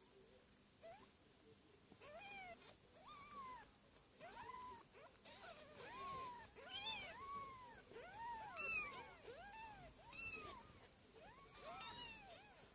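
A litter of week-old kittens mewing: many short, high cries that rise and fall in pitch, several overlapping at once.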